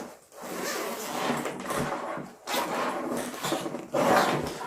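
Zipper on a fabric laptop backpack being drawn along a compartment, in two long pulls of about two seconds each, with the fabric rustling.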